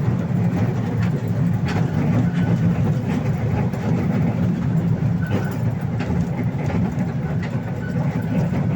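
Ride-on park toy train running along its track: a steady low rumble with a few scattered clicks.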